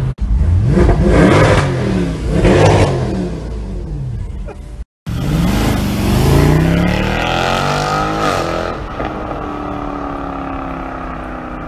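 Mercedes-Benz C63 AMG's 6.2-litre V8 revved hard twice in quick succession, heard from inside the car. After a brief cut, a car's V8 accelerates past with a climbing engine note that drops in pitch as it goes by, then pulls away more steadily.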